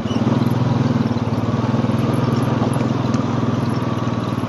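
Small farm vehicle engine running steadily under way, with a fast, even beat.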